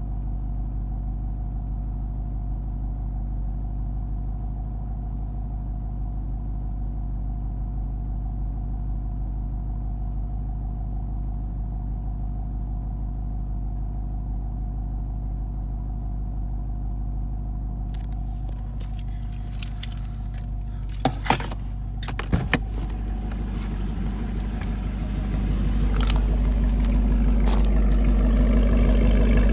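Chevrolet Camaro SS's 6.2-litre V8 idling steadily; about two-thirds of the way in, clicking and rattling handling noises join it, with two short sharp knocks, and the sound grows louder toward the end.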